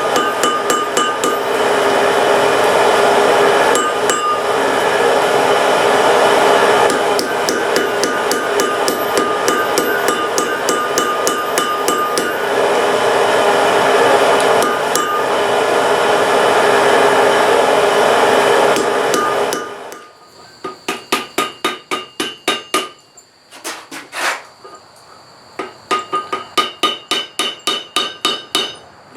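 Blacksmith's hammer beating metal on an anvil, forging the latch: about twenty seconds of fast, heavy blows with the anvil ringing. Then, about two-thirds of the way in, it changes to lighter, quicker taps in short runs with a higher ring.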